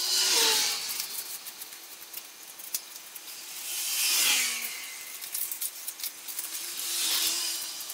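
Fine 1000-grit sandpaper rubbed by hand over a primed brake caliper: a raspy hiss that swells with each slow stroke, three times, with faint scratching between. The light sanding knocks down the high spots in the primer.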